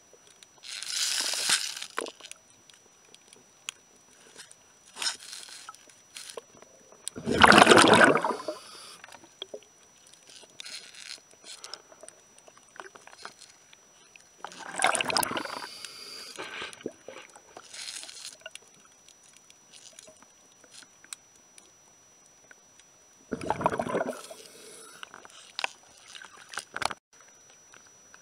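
Water bubbling and sloshing around the camera in irregular bursts, the loudest about eight seconds in, with faint scrapes and ticks between, and a faint steady high whine throughout.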